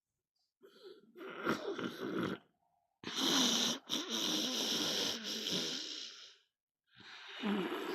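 A man snoring: three long snores with short pauses between them, the middle one the longest and loudest.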